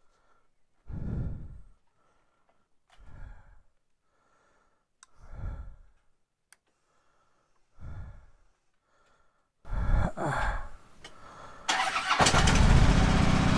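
Soft breath puffs on a helmet-mounted lavalier mic, about every two seconds. About ten seconds in a Harley-Davidson V-twin motorcycle engine starts, and from about twelve seconds it runs loudly.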